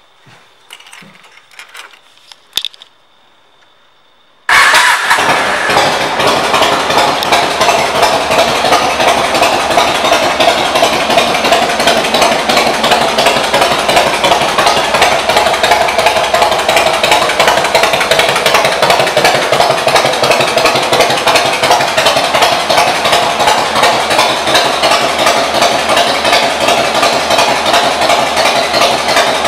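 After a few faint clicks, the Yamaha Road Star 1600's air-cooled V-twin engine comes in suddenly about four and a half seconds in. It then runs steadily through its aftermarket exhaust, with a fast, even firing pulse.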